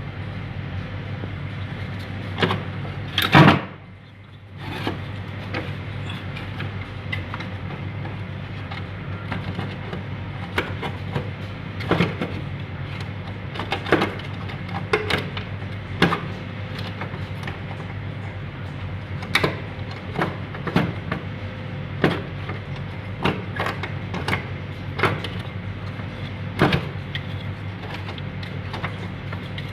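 Refrigerator running with a steady low hum, broken by irregular sharp clicks and crackles, with one louder crack about three seconds in.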